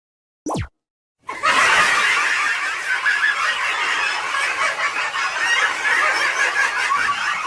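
A quick falling whistle-like glide, then after a second's gap a dense, sustained noise of a crowd squealing and laughing, many voices overlapping.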